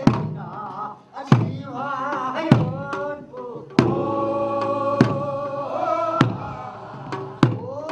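Korean farmers' rice-field weeding song (nonmaegi): voices singing a long, wavering melody over a drum struck about once every 1.2 seconds, keeping a slow, steady beat.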